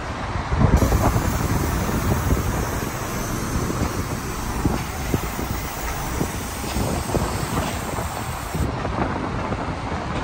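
Asiastar coach idling close by, a steady low rumble, with wind buffeting the microphone in gusts.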